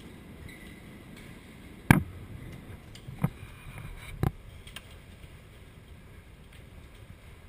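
Hailstones striking a window: a few sharp, separate knocks, the loudest about two seconds in, over a low steady background noise of the storm.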